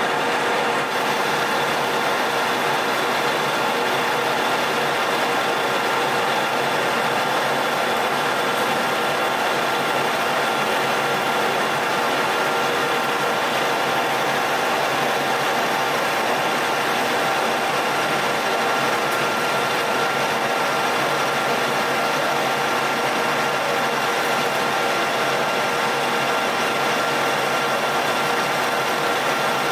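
Metal lathe running steadily while a carbide insert turns a 4140 steel shaft: a constant machine noise with a steady whine running through it.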